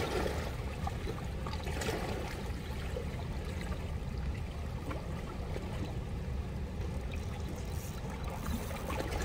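River water flowing steadily past the rocks of the bank, an even, unbroken noise.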